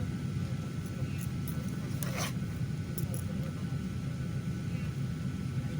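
Steady low rumble of a parked airliner's cabin, the air and ventilation system running, with a brief rustle about two seconds in.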